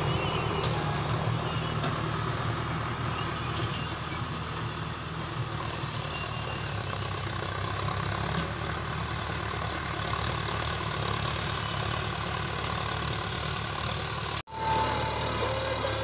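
Sonalika 750 tractor's diesel engine running steadily while pulling a tined plough through the soil. The sound cuts out for a split second near the end, then resumes.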